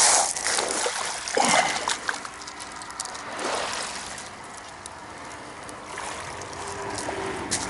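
Seawater washing over a shingle beach, with a few splashing surges that fade into a softer wash of water through wet pebbles. The sound cuts off abruptly near the end.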